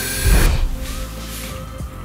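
Background music, with a hiss of compressed air that stops about half a second in, just after a loud low thud.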